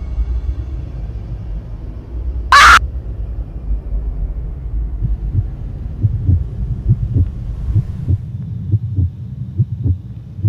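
Horror film score: a dark, low drone, broken about two and a half seconds in by one short, very loud screech, then a run of soft low thuds in an uneven rhythm.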